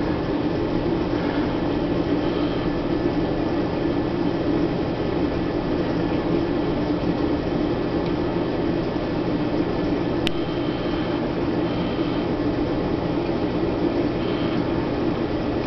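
Steady hum and rushing noise of a reef aquarium's running equipment and water circulation, with a single sharp click about ten seconds in.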